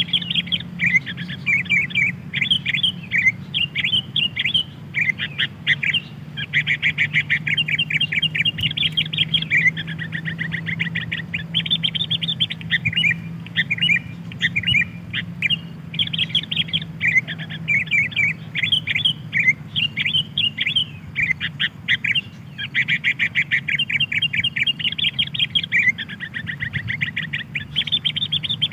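Sooty-headed bulbuls (kutilang) chattering and singing in rapid, almost continuous runs of short notes, with brief pauses, over a steady low hum.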